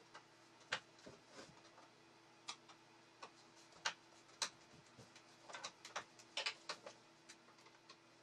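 Screwdriver working the screws out of the underside of an old bentwood chair's seat: irregular small clicks and ticks of the blade in the screw heads and against the wood, with a few sharper ones and a quick cluster a little past the middle. A faint steady hum lies under it.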